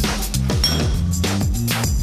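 Background music with a drum beat and falling bass notes.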